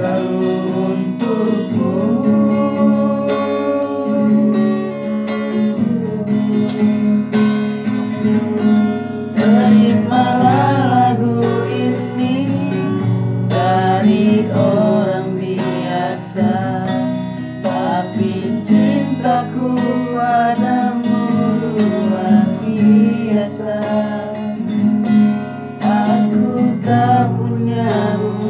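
Acoustic guitar being strummed, with singing along to it.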